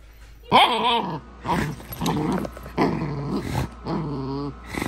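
A Belgian Malinois puppy growling in play while tugging on a cloth: a run of five or six short growls, one after another with brief gaps.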